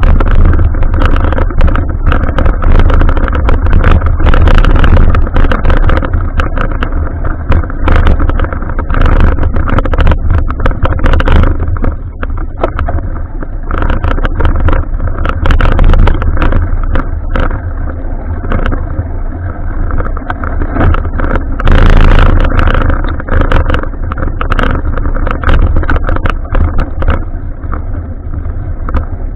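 Heavy wind and road rumble on a bike-mounted action camera's microphone while cycling, with frequent knocks and rattles throughout.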